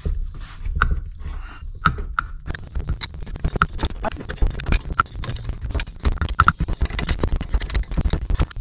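A pulley puller being turned by hand to draw the pressed-on pulley off a 1982 Ford F-150's power steering pump shaft: irregular clicking, creaking and scraping of metal on metal as the pulley starts to give.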